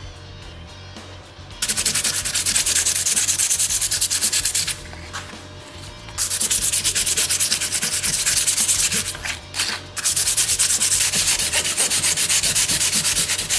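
Quick back-and-forth rubbing strokes, about six a second, in three spells of about three seconds each with short pauses between: a folding-knife part being rubbed down by hand.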